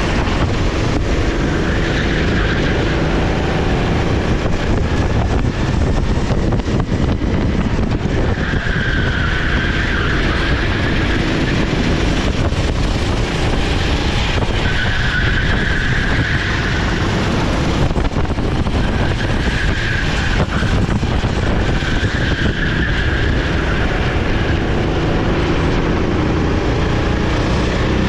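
A 390cc four-stroke SR4 racing kart engine running hard, its pitch rising and falling with the throttle through the lap. The tyres squeal briefly several times through the corners.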